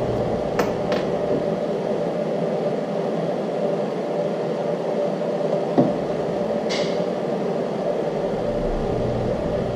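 Steady mechanical room hum, with a few light clicks and one knock as bolts and a Loctite threadlocker bottle are handled at a workbench.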